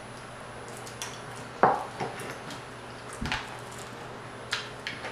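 Metal spoon clinking against a glass bowl of grits, a sharp ringing strike followed by a smaller one, then a dull knock as the bowl is set down on a wooden board about three seconds in. Faint short clicks of eating come between.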